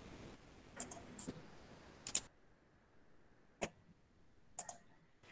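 Faint, irregular computer mouse clicks, single and in quick pairs, about half a dozen in all.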